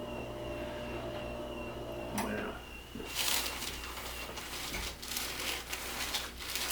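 Rustling and shuffling as a patient is moved about on a chiropractic treatment table, with one sharp click about two seconds in over a steady low hum.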